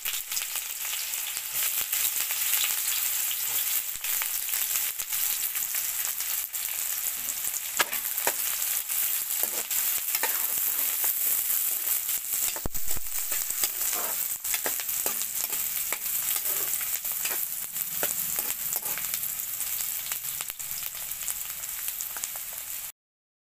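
Chopped onions and green chillies sizzling in hot oil in a metal kadai, with a steady hiss and crackle, while a spatula stirs and scrapes against the pan. The sound cuts off suddenly near the end.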